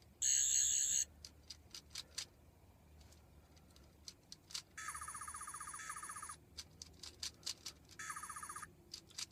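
Character Options Twelfth Doctor sonic screwdriver toy playing its electronic sonic sound effect from its small speaker, in three bursts: a short one at the start, a longer pulsing warble in the middle, and a short one near the end. Light clicks of handling come between the bursts.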